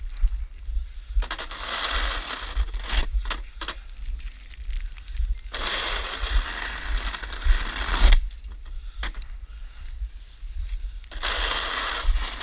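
Snow shovel scraping and pushing through snow in three long strokes, each lasting two to three seconds, with short clicks and knocks between them over a steady low rumble.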